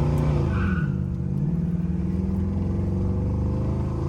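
LS 5.3-litre V8 of a 1985 Chevrolet Monte Carlo SS running at a steady pace under way, its pitch easing down slightly about a second in.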